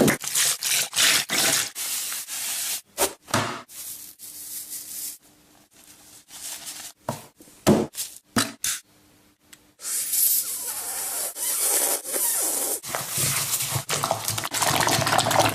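Kitchen utensils knocking and scraping: a quick run of clatters at first, scattered clicks, then a steady rough scraping or rubbing for the last few seconds.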